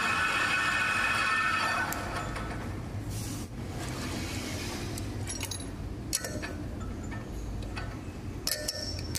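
Manual lathe with a spinning single-point cutter cutting a slot in a metal block, a whining, ringing cut that stops about two seconds in. A low machine hum goes on after, with several light metallic clinks in the last few seconds.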